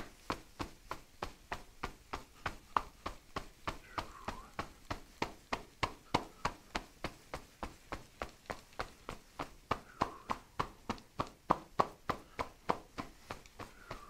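Percussive massage on a person's back: the edges of two pressed-together hands chopping against the back in an even rhythm, about three to four strokes a second.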